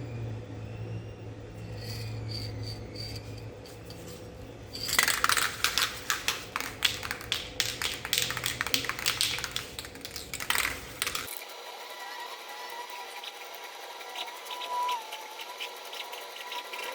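Aerosol spray-paint can being shaken, its mixing ball rattling in a quick, irregular run of clicks for about six seconds. A low steady hum comes before it.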